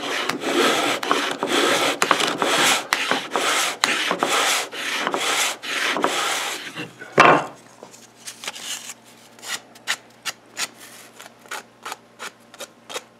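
Sandpaper glued to a hand-held holder, pushed back and forth along a sanding shooting board, rubbing across the end of a wooden banding strip to sand a 45-degree miter: quick repeated scratchy strokes for about seven seconds. Then one sharp knock, followed by a series of light taps and clicks.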